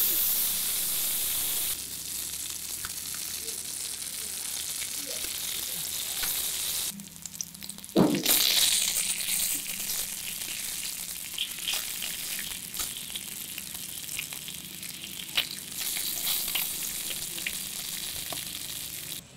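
Small whole fish frying in oil in a miniature steel pan, with a steady hiss that is loudest at the start as a second fish goes in. A sharp knock a little before halfway and scattered light clicks come from a small spatula turning the fish in the pan.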